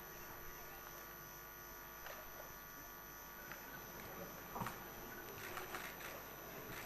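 Quiet room tone from the microphone feed: a steady electrical hum, with a few faint soft knocks about two thirds of the way through.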